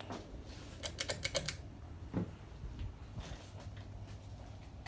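Ceiling fan's pull-chain speed switch clicked rapidly, about six sharp clicks about a second in, then one softer click, as the fan is switched off. A faint steady low hum runs underneath.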